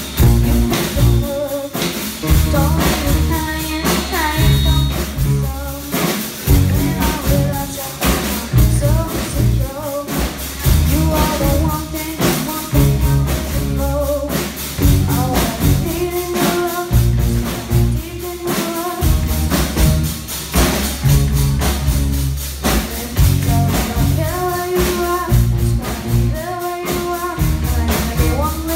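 Live rock band playing a song: electric guitars and a drum kit with a young singer on lead vocals through the microphone.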